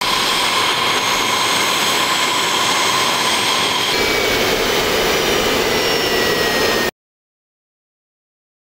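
Jet aircraft engines running, a steady noise with several high whistling tones. After about four seconds the sound changes and one whine slowly falls in pitch. It cuts off suddenly about seven seconds in.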